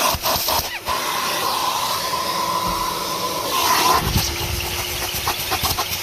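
Kerstar KV25-2 twin-motor commercial vacuum cleaner running, a steady rush of suction air with a whine. Clicking and rattling come at the start and again from about four seconds in, and the air note shifts briefly just before that.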